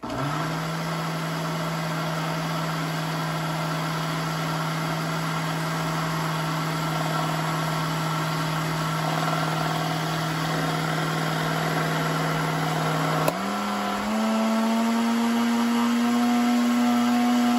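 Countertop blender motor running steadily while blending papaya with milk and ice. About 13 seconds in there is a click, and a moment later the motor speeds up to a higher pitch.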